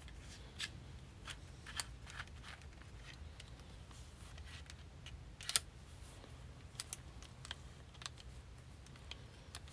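Scattered light metal clicks and clinks from a hand rivet nut tool and its threaded adapter pieces being handled and fitted together, with one sharper click about five and a half seconds in, over a low steady hum.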